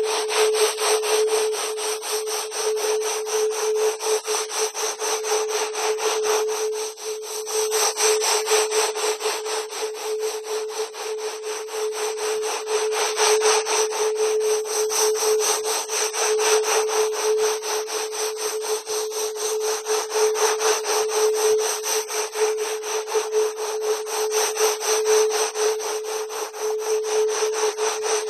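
Synthetic electronic audio track: a steady mid-pitched tone held under a rapid, even, pulsing hiss that sounds like rasping or sawing, unchanging throughout.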